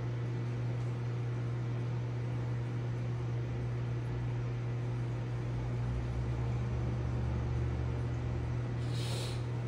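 Steady low hum of aquarium equipment running, with a short hiss about nine seconds in.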